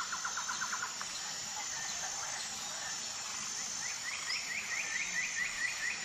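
Forest birds calling over a steady insect hum: a rapid trill of short notes right at the start, then a repeated series of short rising notes, about five a second, from about four seconds in.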